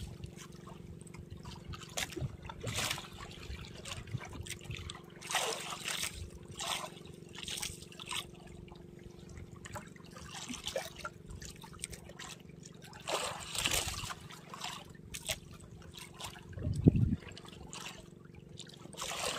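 Seawater splashing and trickling against a small boat in irregular bursts over a steady low hum, with one louder dull knock near the end.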